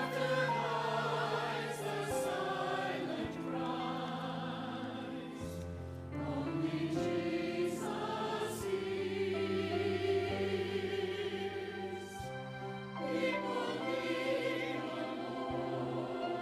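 Church choir singing, with sustained low accompaniment notes that change every few seconds.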